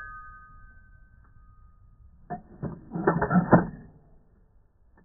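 Bolt of a Lithgow LA102 .243 Winchester rifle worked by hand: a quick run of metallic clicks and rattles about two to four seconds in. Before that, a ringing tone fades out over the first two seconds.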